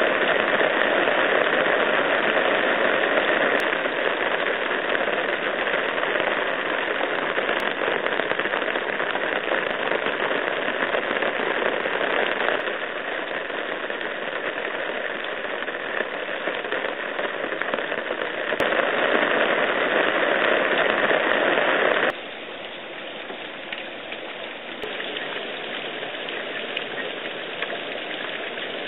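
Heavy rain pouring onto a tiled roof, a steady, dense hiss that drops sharply in level about two-thirds of the way through.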